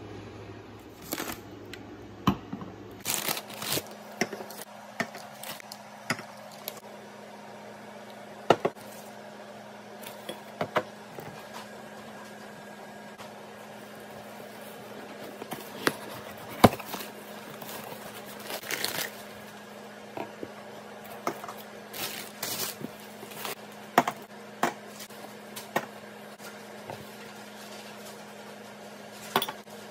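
Dishes and glassware being unpacked and handled on a table: scattered clicks and knocks as pieces are picked up and set down, with brief rustling of plastic bags and wrapping.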